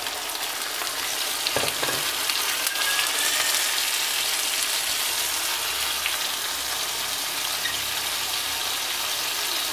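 Onions, ginger-garlic paste and freshly added sliced tomatoes sizzling steadily in hot oil in a non-stick karahi. A light knock sounds about one and a half seconds in.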